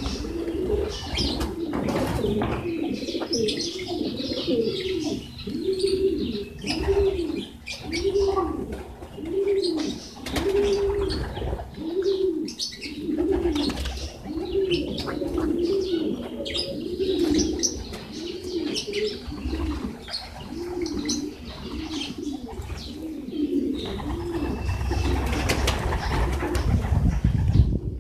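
Domestic pigeons cooing: a low, rising-and-falling coo repeated about once a second, with light clicks of beaks pecking grain off concrete. The cooing stops about four seconds before the end, and a louder hiss takes over.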